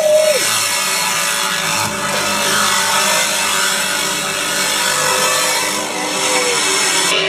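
Loud music playing on a car stereo inside the cabin, heard as a dense, harsh wash of sound with little clear melody.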